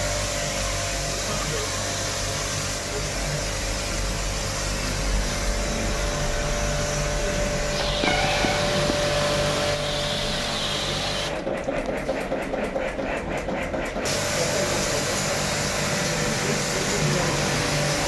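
Portable electric pressure washer spraying a water jet onto an air-conditioner filter: a steady hiss of spray over the pump motor's hum. A little past the middle the sound turns choppy and pulsing for about three seconds, then goes steady again.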